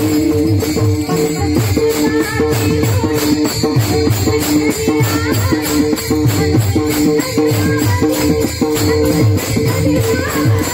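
Varkari bhajan ensemble playing: many pairs of small brass hand cymbals (tal) clashing in a quick steady beat of about four strokes a second, over pakhawaj drum strokes and a held harmonium drone.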